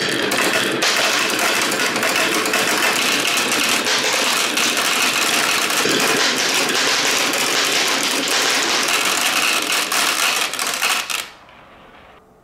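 Dozens of glass marbles rolling and clicking down a wooden HABA wave slope and dropping onto a pile of marbles in a plastic toy garbage truck's bin: a dense, steady clatter that stops abruptly about eleven seconds in.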